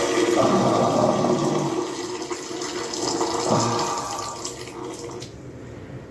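Water running from a tap into a sink, easing off and fading away about five seconds in.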